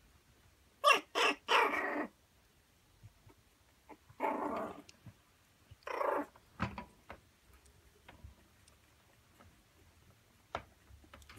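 Three-week-old puppies giving little barks and yelps: three quick ones about a second in, then two longer calls around four and six seconds, with faint scuffling between.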